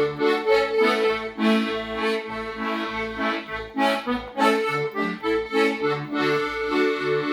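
Instrumental passage of a gospel song: a held, sustained melody over a regular bass beat, between sung lines.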